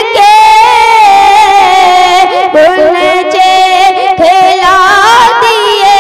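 A boy singing an Urdu devotional kalam (naat) into a microphone. He holds long notes that waver and bend, with quick ornamental turns between them.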